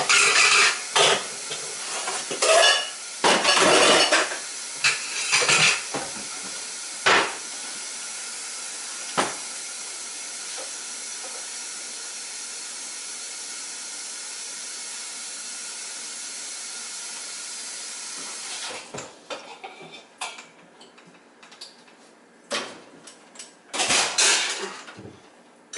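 Stainless pot and colander clattering, then kitchen tap water running steadily into a large cooking pot for about twelve seconds, filling it for pasta, until the tap is shut off sharply. A few knocks and clanks follow near the end as the pot goes onto the stove.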